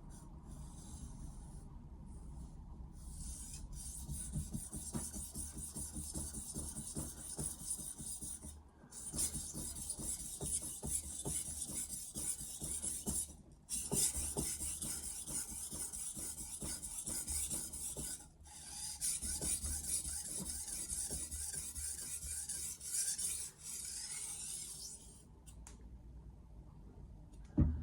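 Steel kitchen knife blade, a Mercer 8-inch granton-edge knife, stroked back and forth across the 1000-grit side of a Stratton Pro sharpening stone: a steady gritty rasping, broken by brief pauses every few seconds and stopping a few seconds before the end. It is re-sharpening a deliberately blunted edge on a slow-wearing stone.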